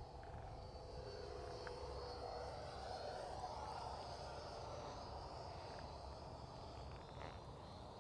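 Freewing Avanti 80mm electric ducted-fan jet, fitted with its high-performance motor, whining as it makes a fast pass. The sound grows louder toward the middle and fades, and its pitch drops as it goes by.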